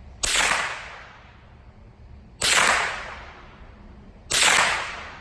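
Three shots from a Marlin Model 60 semi-automatic .22 LR rifle, about two seconds apart. Each is a sharp crack with a tail that fades over about half a second.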